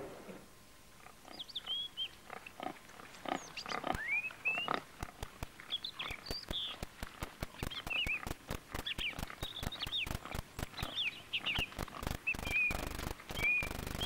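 Pigs rooting through ground litter: many short crackling and rustling noises. Birds chirp in short high calls throughout.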